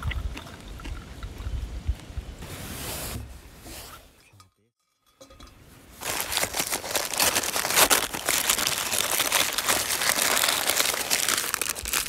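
Hot drink poured from a vacuum flask into a stainless steel camping mug. After a short silent gap, a loud, continuous crackling rustle starts as a nylon jacket sleeve passes close over the microphone.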